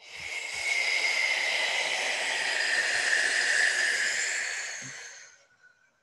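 A woman's long exhale blown out through the mouth: a breathy hiss with a faint whistling tone, lasting about five seconds and fading out near the end.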